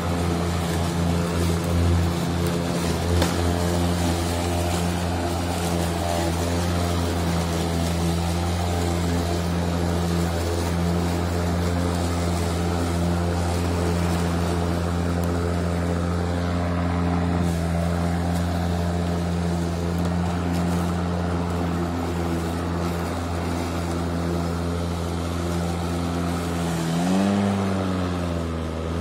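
Ryobi 40-volt brushless electric push mower running and cutting grass: a steady, pretty quiet motor and blade hum. Near the end the pitch wavers briefly and settles back.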